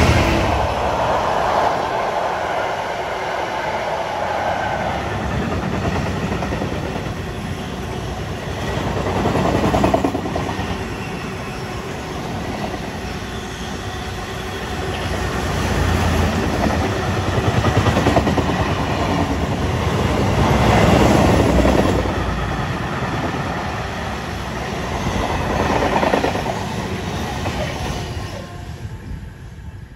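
Class 66 diesel freight locomotive passing at the start, followed by a long train of loaded car-carrier wagons rolling past, their wheels clattering on the rails. The clatter swells and eases several times and dies away at the end as the last wagon goes by.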